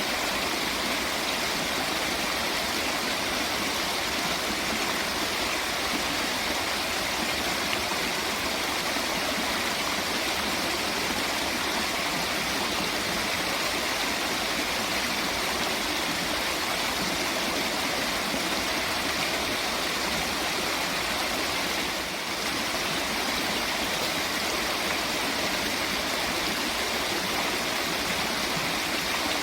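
Steady rush of running water from a stream or waterfall, an even hiss with no pauses, dipping briefly about three quarters of the way through.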